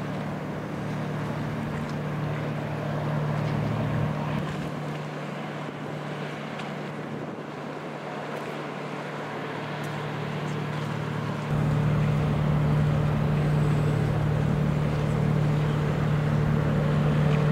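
Boat engine running with a steady low drone, some light wind noise on top; it gets louder and deeper about eleven and a half seconds in.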